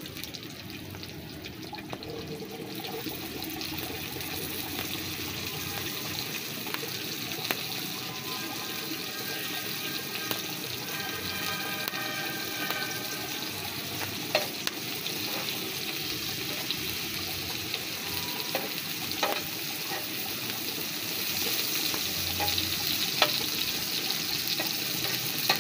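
Onions and tomato slices sizzling in oil on a flat iron griddle (tawa), a steady frying hiss with a few sharp clicks of knife and spatula. The sizzle grows louder near the end as the pan is stirred.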